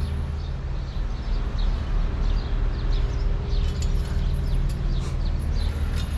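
Small birds chirping in many short high calls over a steady low hum of street traffic.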